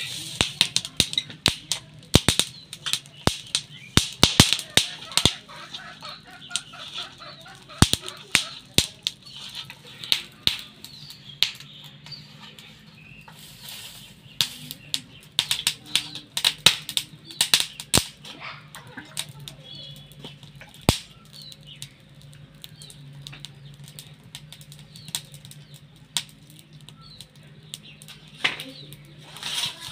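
Hands mixing a wet, spiced flour batter in a steel bowl: a quick run of wet slaps and clicks, dense at first and sparser in the second half.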